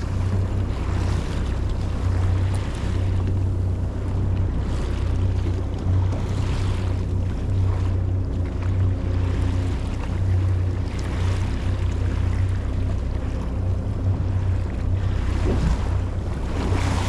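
Wind buffeting the microphone on an open boat at sea, a steady low rumble with gusts coming and going every second or two, over the wash of waves against the hull.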